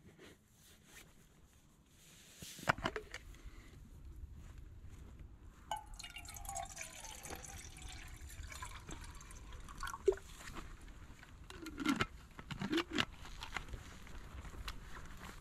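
Water poured from a bottle into a metal camping mug set on a gas canister stove, splashing and gurgling in the mug, with a few sharp clicks and knocks. A steady low rush starts about three seconds in.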